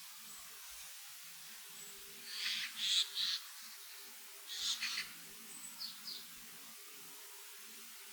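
Wild birds calling in a forest: two rough, harsh bursts of calls, about two and a half and four and a half seconds in, followed by a few short chips, with faint thin high notes in between.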